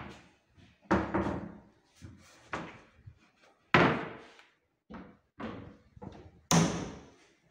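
Built-in wardrobe cupboard doors being swung shut one after another, each closing with a sudden knock. There are about six in all, the loudest nearly four seconds in and near the end.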